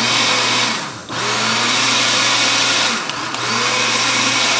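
Countertop electric blender running at speed, mixing a thick cake batter of flour, cornstarch, eggs, oil and lemon juice. Its motor slows briefly twice, about a second in and again near three seconds, then picks back up.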